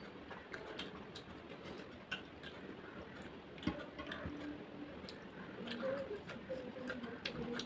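Eating sounds of a person eating rice and chicken curry by hand: chewing with wet mouth clicks and lip smacks, and fingers squishing rice on a plate, with one sharper click about halfway through.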